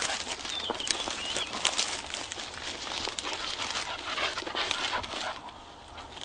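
English setter puppies moving through vegetation: a dense crackle of rustling and footfalls that thins out near the end, with a dog panting.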